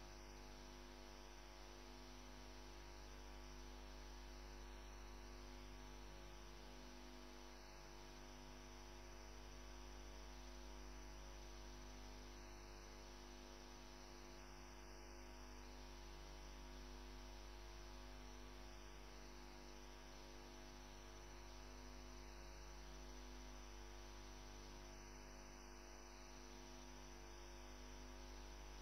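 Near silence: a steady low electrical mains hum with faint hiss, unchanging throughout.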